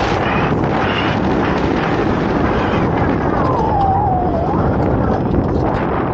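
Wind buffeting the microphone in a loud, steady rush, with an electric motocross bike's motor whine that dips and rises in pitch a few seconds in.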